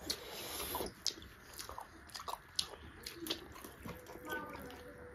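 Close-miked mukbang eating sounds: people biting and chewing pieces of pork and rice, with irregular wet mouth clicks and a brief rush of noise at the start.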